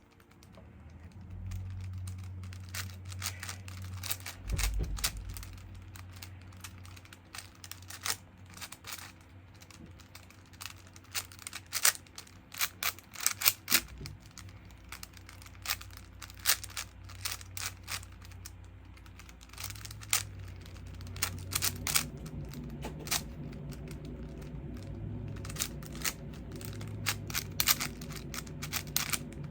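5x5 Rubik's cube being turned fast during a speedsolve: dense, irregular plastic clicking and clacking of the layers, in quick flurries, over a low steady hum.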